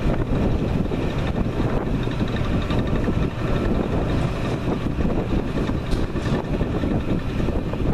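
Wind buffeting the microphone: a steady, loud rumbling noise with no distinct events.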